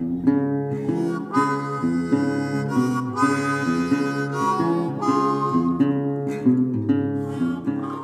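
Instrumental intro music: a melody of distinct notes over a moving bass line.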